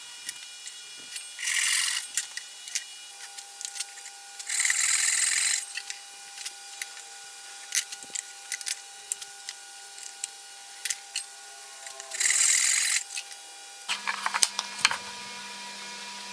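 A handheld power tool runs in three short bursts of about a second each, among light clicks and knocks from handling work pieces.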